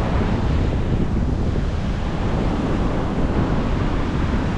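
Gusty wind buffeting the microphone in a steady low rumble, over the rush of rough, storm-driven ocean surf.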